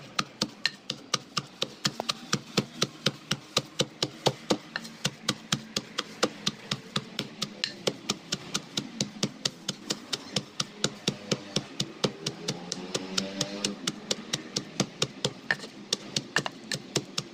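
Wooden pestle pounding cassava leaves and fresh spices in a wooden mortar (lesung and alu), a steady run of dull knocks at about four strikes a second. This is the coarse pounding stage, not yet fine.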